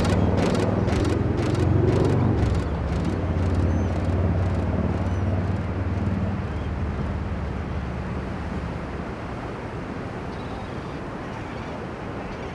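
Beach ambience: small surf washing ashore, with wind rumbling on the microphone. A fast run of ticks, about four a second, fades out over the first few seconds.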